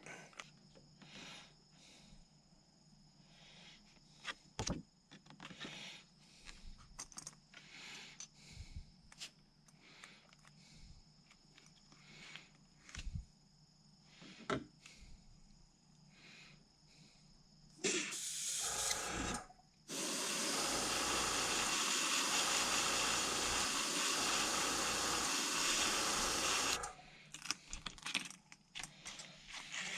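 Handheld hot-air dryer switched on in a short burst, then blowing steadily for about seven seconds to dry fresh paint on a lure. Light handling clicks and taps before it.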